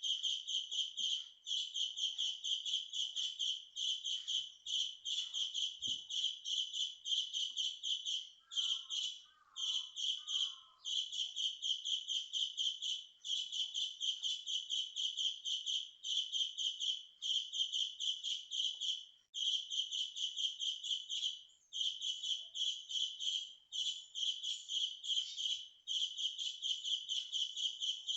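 Birds chirping very loudly in fast runs of notes, bout after bout of one to two seconds with short breaks between. A softer, lower call is heard briefly about nine to eleven seconds in.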